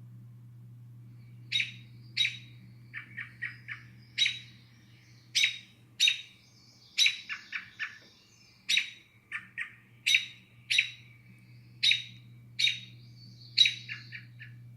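Recorded predator-bird calls played back by an Arduino bird scarer's DFPlayer mini MP3 module: sharp calls about once a second, with quick runs of three or four shorter notes between them, starting about a second and a half in. Under them runs a steady low electrical hum.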